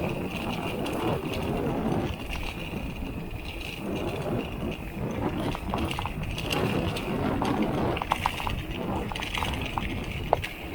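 Mountain bike being ridden over rough ground: a steady rush of riding noise with the bottle cage rattling, and a run of sharp clicks and rattles in the last few seconds.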